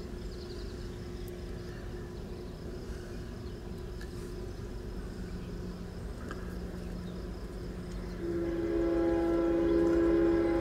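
Approaching diesel freight train: a steady low rumble, then about eight seconds in the locomotive's air horn sounds a loud chord of several notes, held to the end.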